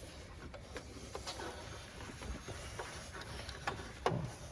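Faint scattered clicks and rustles of hands working with parts while a new drive belt is handled, with a sharper click about four seconds in.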